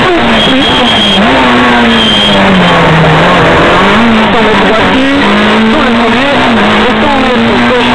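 Peugeot 106 S16 rally car's 1.6-litre 16-valve four-cylinder engine running hard on a stage, heard on board. Its revs fall away between about one and three seconds, then climb again, with two short high squeals in the first few seconds.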